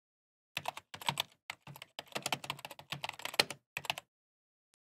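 Computer keyboard typing sound effect: a quick run of key clicks lasting about three and a half seconds, with nothing else behind it, stopping about a second before the end.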